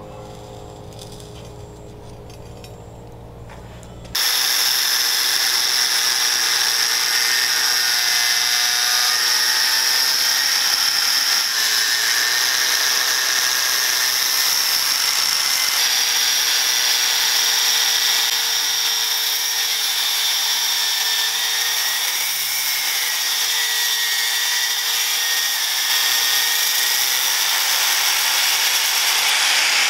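Electric angle grinder with a thin cut-off disc cutting through leaf-spring steel: a loud, steady, high-pitched grinding whine. It starts abruptly about four seconds in.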